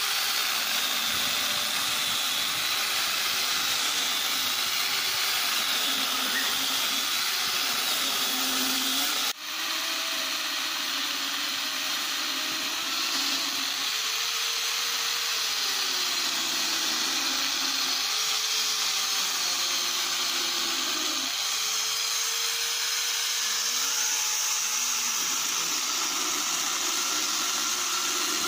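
Electric mini chainsaw cutting into a tree root, its motor whine sagging and recovering as the chain bites into the wood. The sound breaks off briefly about nine seconds in, then carries on.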